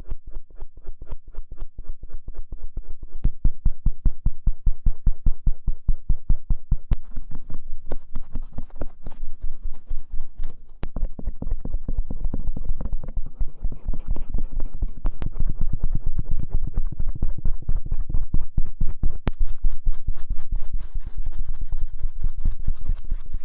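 Ear-cleaning tools rubbing and scraping the outer ear right at the microphone, in quick repeated strokes several times a second; the texture changes about 7 and 11 seconds in as the tool or stroke changes.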